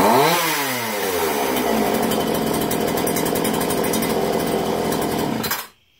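Homelite chainsaw's two-stroke engine running after its carburetor's low-speed screw was turned out half a turn: a quick rev up and back down near the start, then steady running, and the engine shuts off suddenly just before the end.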